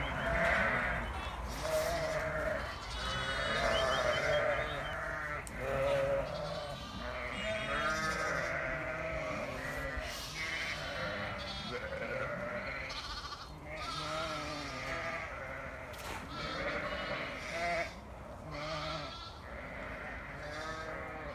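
A flock of ewes and lambs bleating continuously, many calls overlapping, some high and some deeper.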